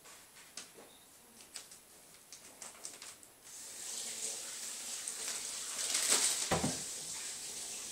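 Plastic wrapping on a rolled carpet crinkling under a cat's claws: scattered light clicks at first, then a louder continuous rustle as the cat climbs down the roll. A low thump comes about six and a half seconds in.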